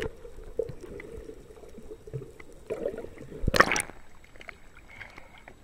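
Seawater gurgling and sloshing around a camera at the waterline of a boat's hull, over a low steady hum. A loud splash comes about three and a half seconds in, then quieter lapping water.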